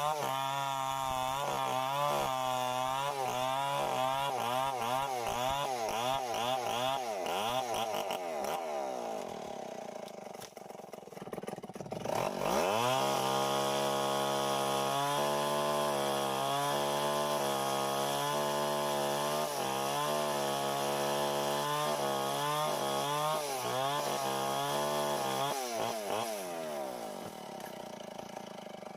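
Tecomec two-stroke chainsaw cutting mango wood. The engine pitch wavers up and down under load, sinks to a low idle about ten seconds in, then revs up hard at about twelve seconds and holds high revs. Near the end it drops back toward idle.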